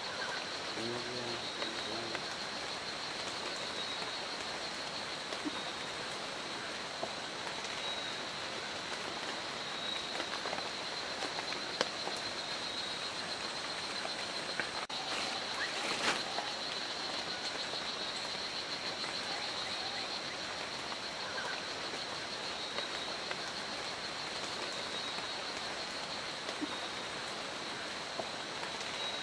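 Tropical rainforest ambience: a steady high-pitched calling chorus runs over a constant hiss, with a few faint clicks.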